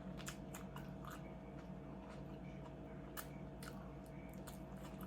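A person chewing and crunching through nachos and tacos, with irregular crisp crunches every fraction of a second.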